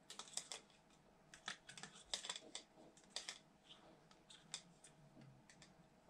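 Faint, irregular clicks and light scrapes of a metal palette knife against a plastic tub as it pokes and lifts slices of modelling paste soaking in water.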